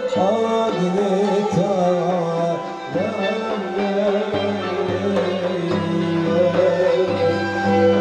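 Live Turkish Sufi (tasavvuf) music from a small ensemble: a wavering melodic line, likely a male singer with ney, over the beat of a frame drum, with kanun and violin.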